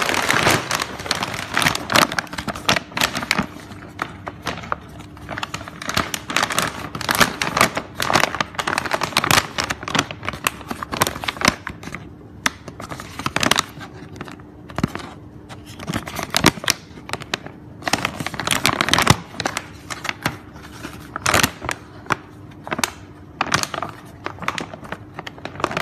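Large laminated plastic bag being handled, crinkling and crackling in irregular bursts, with a faint steady hum underneath.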